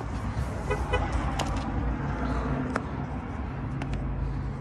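Low rumbling handling noise from the phone being moved about, with a few light clicks and taps and a brief pair of chirp-like pips about a second in.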